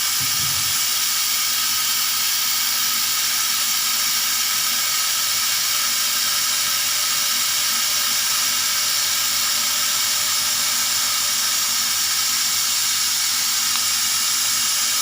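CNC laser cutting machine running while it cuts 3 mm melamine plywood: a steady, unbroken hiss with faint steady hums underneath.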